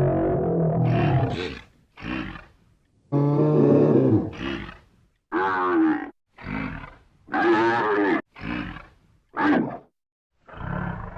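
Buffalo bellowing and grunting: a string of about ten separate calls, the longer ones deep and drawn out, others shorter and higher-pitched, each broken off by a brief silence.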